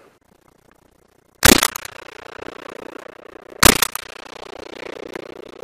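Hunting shotgun fired twice at a duck, about two seconds apart. Each shot is followed by a trailing echo.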